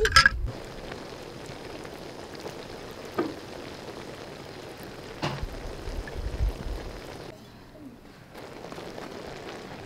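A steady hiss, with a few light clinks of a metal spoon against a bowl as food colour is poured over rice.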